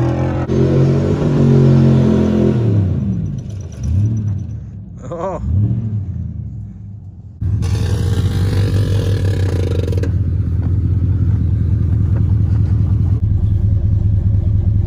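Pickup truck's gasoline engine revving hard, its pitch climbing and falling for a few seconds, then easing off with two short blips of the throttle. After a sudden change, the engine runs steadily and loudly close by, with a hiss over it for the first couple of seconds.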